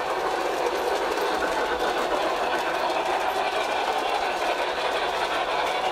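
Model train running on its track: the steady whir of its small electric motor and its wheels rolling on the rails.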